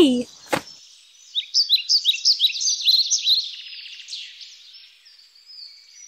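A small songbird singing a rapid, high twittering song of short sliding chirps. It starts about a second and a half in and fades out toward the end, after a single click near the start.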